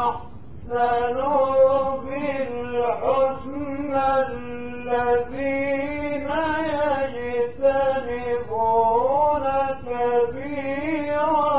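A man reciting the Quran in a melodic chant, with long held notes that bend and waver in pitch, and a brief breath pause near the start.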